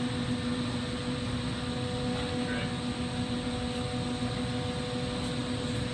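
Steady roar of lampworking torches and shop ventilation running, with a constant low hum underneath.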